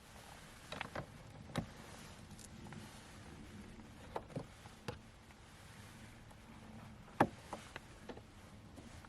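Irregular light taps and clicks over a steady soft hiss, the loudest tap about seven seconds in.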